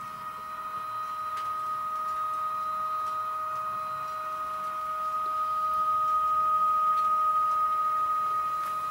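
Model Siemens Vectron Dual Mode locomotive running slowly at constant speed, its motor giving a steady high-pitched electric whine that grows louder as it draws near, with a few faint clicks.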